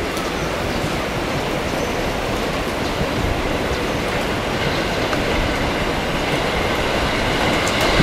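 Electric commuter train running past on the rails with a steady rumble of wheels and running gear. A faint high whine joins about halfway through.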